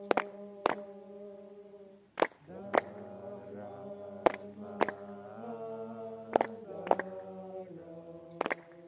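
Several voices chanting in long held notes, the pitch stepping a couple of times. Sharp loud strikes cut through it in pairs about half a second apart, roughly every two seconds.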